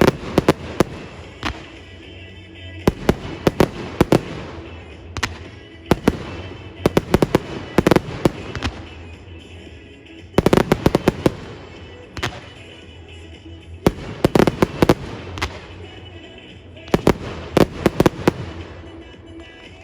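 Fireworks going off in rapid volleys of sharp bangs and crackles, a cluster every three to four seconds, with music playing underneath.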